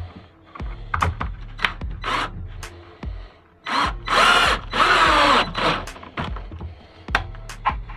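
Cordless drill-driver driving screws into a beech glued-laminated panel, with two short runs about four and five seconds in and light clicks and knocks of handling around them.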